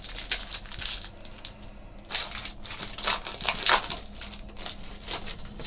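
Foil wrapper of a Panini Totally Certified hockey card pack being torn open and crinkled by hand, in irregular rustling bursts that are loudest in the middle.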